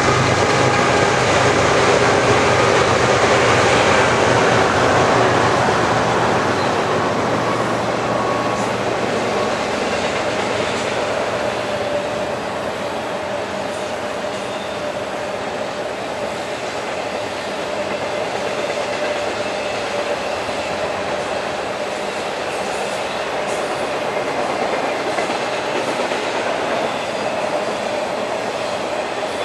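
BNSF freight train rolling past. A locomotive's diesel engine drone fades out over the first ten seconds or so, leaving the steady rumble and clatter of the freight cars with a faint steady ringing tone through it.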